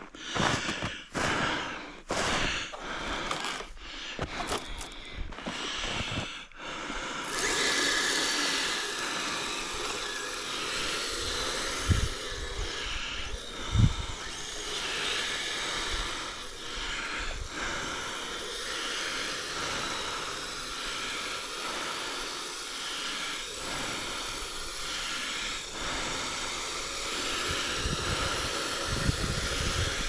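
Footsteps crunching through deep snow, about two steps a second, for the first seven seconds. Then a steady hiss takes over, with two low thumps around twelve and fourteen seconds in.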